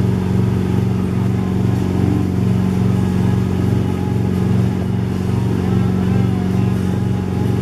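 Wake boat's inboard engine running steadily under way, a constant low drone, with the rush of the churning wake water.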